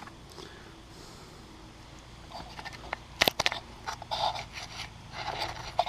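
Scraping and rustling handling noises with a few sharp clicks, starting about two seconds in after a quiet start, the loudest click a little past the middle.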